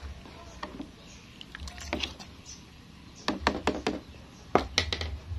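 Plastic ladle stirring a pot of coconut-milk vegetable broth and knocking against the aluminium pot, giving sharp clicks and knocks in small clusters about two, three and a half, and five seconds in, over a low steady rumble.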